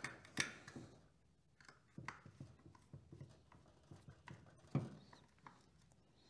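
Scattered light clicks and taps as a T-handle Allen key turns the screws out of a plastic engine cover and hands shift the cover. The loudest tap comes a little before the end.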